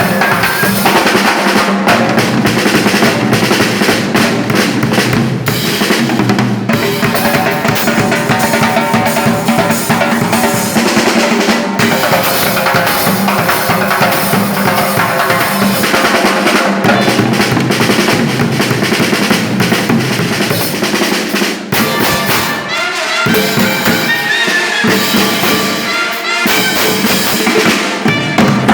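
Loud music with a busy drum beat under melodic instruments.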